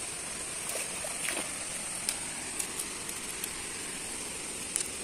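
Steady hiss of river water, with a few short sharp clicks scattered through it.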